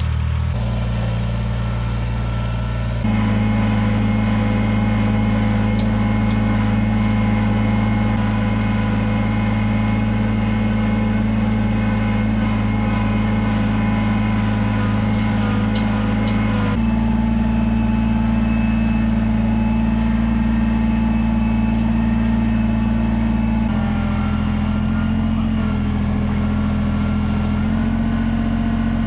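Compact loader tractor's engine running steadily, its pitch jumping abruptly to a new steady speed a few times: about three seconds in, about two-thirds through, and twice near the end.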